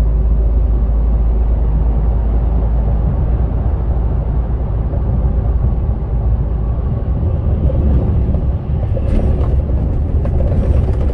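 Steady low rumble of a Scania R450 truck cruising at highway speed, heard inside the cab: the engine's drone mixed with road and tyre noise.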